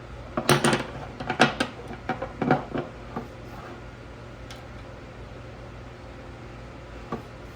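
A quick run of sharp metal knocks and clacks in the first three seconds, then two lone clicks later on: the router lift plate being rocked and pressed in its table opening to test for wobble. A steady low hum runs underneath.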